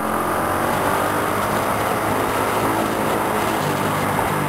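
Steady running noise of a motor scooter ridden through city traffic: the engine hums under a constant rush of road and wind noise, with no sudden events.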